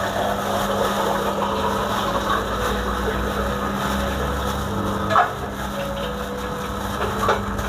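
A plastic bag crinkles and rubs as a hand inside it tosses shredded boiled chicken in a stainless-steel bowl, with a couple of sharper crackles or taps about five and seven seconds in. A steady machine hum runs underneath.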